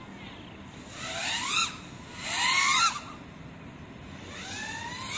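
GEPRC Mark5 freestyle FPV quadcopter's motors and propellers heard from the ground: three bursts of rising whine as the throttle is punched, the middle one loudest, over a steady low hum.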